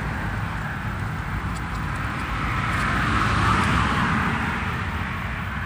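A road vehicle passing: a steady rush of tyre and engine noise that grows to its loudest about three and a half seconds in, then fades away.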